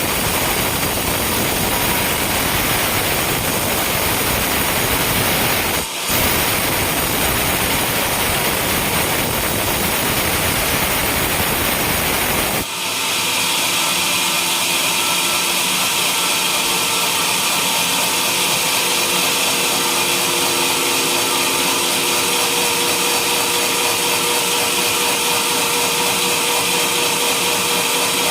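Sawmill sawing a coconut palm log: steady, loud saw and motor noise. It breaks off briefly about six seconds in. Near thirteen seconds it changes abruptly to a higher, thinner sound with a steady whine.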